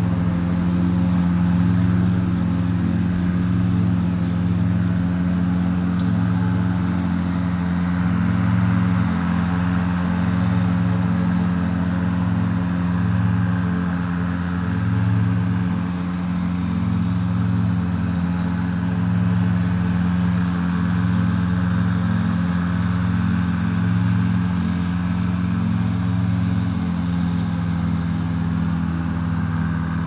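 Steady low engine hum with a slow, even pulsing, and a thin high steady whine above it.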